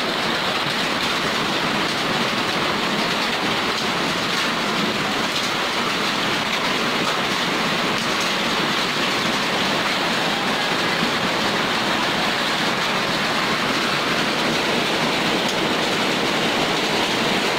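Heavy rain mixed with hail falling in a steady, even rush.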